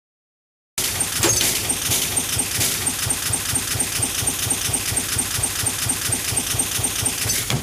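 Electronic static-and-glitch sound effect for an animated logo intro: a dense hiss with an even, fast ticking pulse of about four ticks a second. It starts abruptly about a second in and cuts off near the end.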